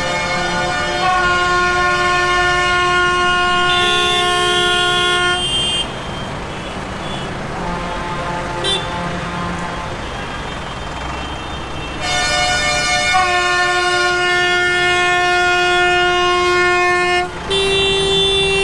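Several tractor horns sounding together in long, held blasts over a low rumble. They stop about six seconds in and leave only the rumble, then start again about halfway through and go on to near the end, with a brief break shortly before.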